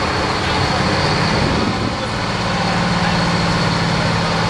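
FTF truck's two-stroke Detroit Diesel engine idling steadily, with a slight shift in pitch about two seconds in.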